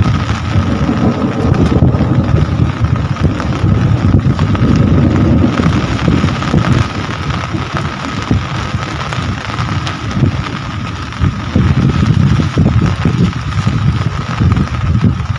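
Rain falling steadily, with gusts of wind buffeting the microphone in a low rumble that swells and ebbs.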